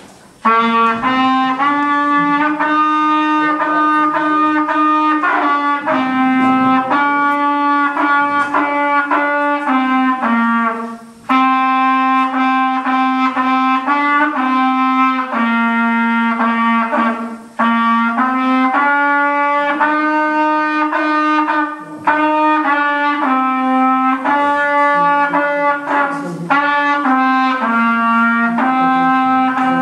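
A boy playing a solo trumpet melody in held notes, phrase by phrase, with short pauses for breath between phrases.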